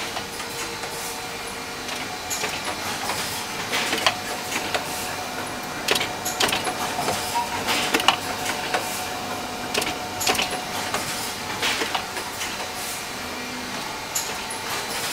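Singulus Skyline1 CD replication line running, fed by a Netstal Discjet 600 moulder: a steady machine hum with sharp mechanical clacks from the disc-handling arms about every two seconds as discs are transferred through the line.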